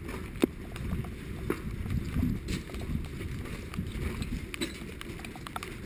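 Footsteps on wet gravel, with scattered sharp knocks, the loudest about half a second in.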